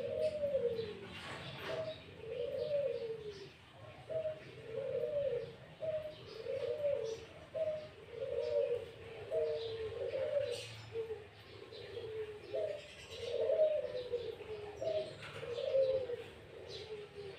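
Bird calls: a steady run of low notes, each rising and falling, about one a second, with fainter short, higher chirps scattered over them.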